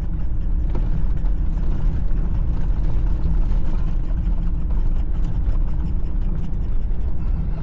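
Jeep Gladiator driving slowly over a bumpy, rutted dirt road: a steady low rumble of engine and tyres, with light scattered clicks and rattles.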